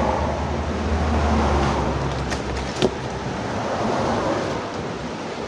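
Steady background noise with a low rumble that fades out after about two seconds, and two faint clicks about halfway through.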